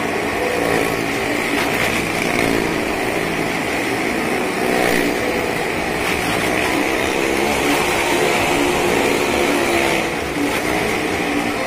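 Small car's engine running steadily at high revs as it circles the vertical wooden wall of a well-of-death drum.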